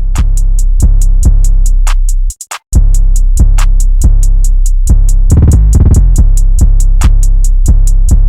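Background electronic music: a loud drum-machine beat over a deep, steady synth bass, with a brief drop-out a little after two seconds and a drum fill about five seconds in.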